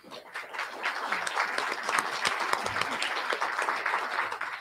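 Audience applauding: many hands clapping, building up over the first second and then holding steady.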